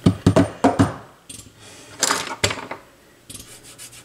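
Small metal tools and parts clinking and knocking as they are picked up and handled: a quick run of sharp clicks at the start, two louder knocks about two seconds in, then lighter taps near the end.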